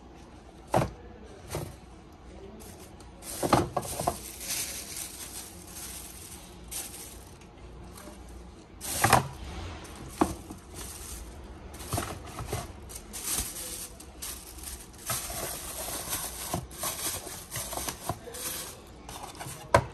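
Tissue paper rustling and crinkling in bursts while a canvas sneaker is handled and packed into its cardboard shoebox, with sharp knocks and taps from the shoe and box, the loudest about a second in and near the middle.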